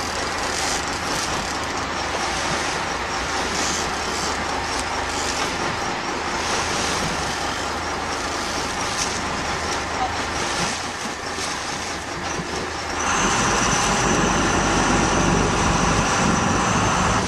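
Sportfishing boat's engine running under steady wind and water noise. About two-thirds of the way through, the noise steps up louder and a steady high whine comes in.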